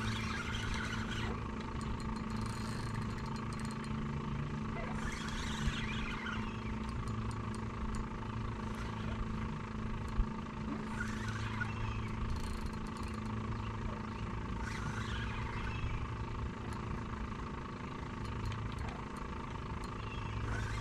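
A steady low engine hum runs throughout. Several brief bursts of hiss come and go over it.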